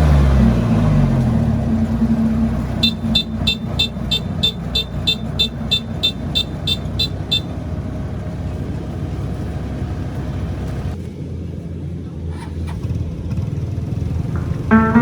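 A motor vehicle's engine running; its pitch drops in the first second, then it runs steadily. About three seconds in, a run of short, high, evenly spaced electronic beeps goes on for about four seconds, like a reversing alarm. Guitar music starts at the very end.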